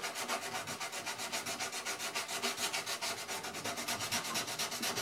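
Sandpaper rubbed by hand over a carved wooden frame, in quick, even back-and-forth strokes, about seven a second, smoothing the carving before its finish coat.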